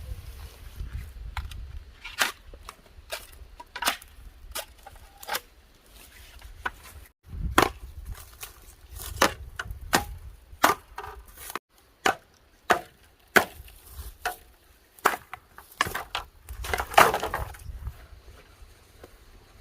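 Repeated sharp chopping blows, about one to two a second at an uneven pace, some harder than others.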